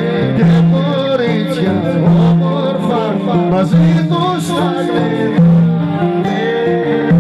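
Greek folk dance music played by a band, with a singing voice and instruments over a steady low drone-like bass.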